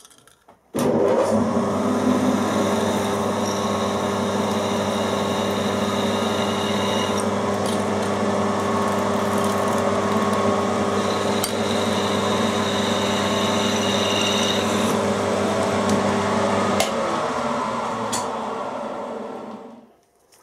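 A vertical milling machine's spindle motor starts about a second in and runs steadily with a hum and a higher whine, while a 6.25 mm clearance drill bores holes in an aluminium plate. The motor is switched off near the end and runs down.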